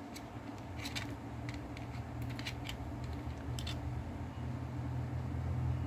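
Small, irregular clicks and light scrapes of hands handling an Olympus OM-1 film camera body, mostly in the first four seconds, over a steady low hum.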